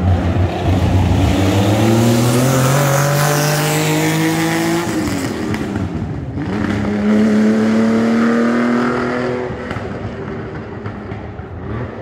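Vintage over-2-litre sports racing car engine at full throttle, the revs climbing for several seconds, dropping with a gear change about five seconds in, then climbing again before fading as the car moves away.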